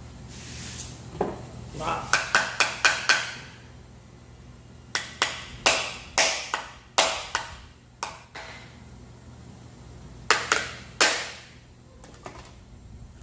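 Cooked lobster shell cracking and crunching as it is broken open, heard as clusters of sharp cracks: a quick run of about five, then more spread over the next few seconds, and a final pair near the end.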